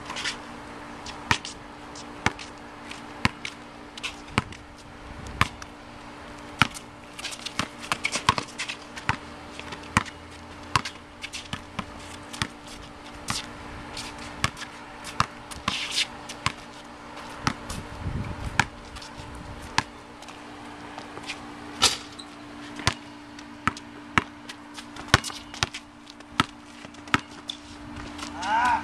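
Basketball bouncing on a concrete court, dribbled in runs of sharp slaps about a second apart, at times quicker. A steady low hum runs underneath.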